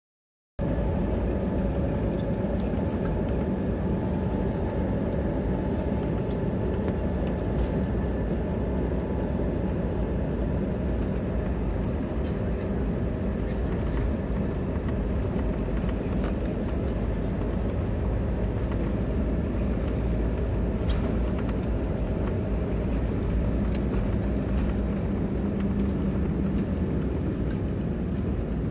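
Airbus A320-family airliner's twin jet engines at takeoff thrust heard from inside the cabin during the takeoff roll: a steady loud rumble with a faint whine over it and a few light rattles.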